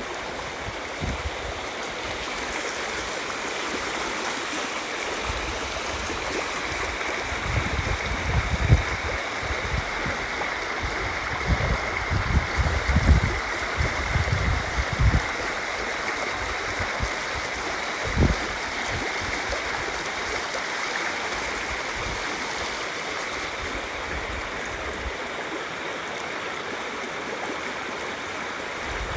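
River water flowing and rushing steadily. Several low thumps come and go through the middle, one standing alone about two-thirds of the way in.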